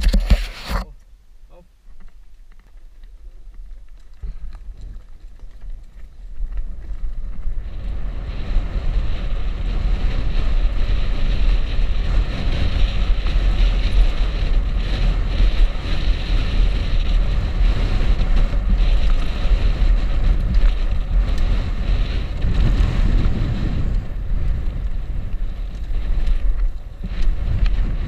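Wind rushing over the microphone and the tyres of a downhill mountain bike rolling on a dirt trail, building from about six seconds in as speed picks up into a steady, loud rush with a deep rumble. A sharp knock right at the start.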